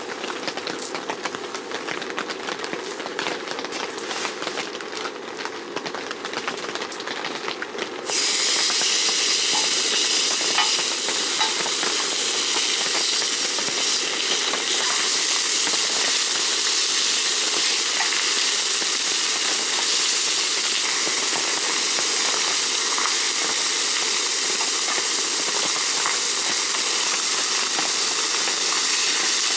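Pork belly strips sizzling on a hot oiled griddle. A loud, steady sizzle starts suddenly about eight seconds in as the first slices go onto the pan; before that there is only a softer crackling.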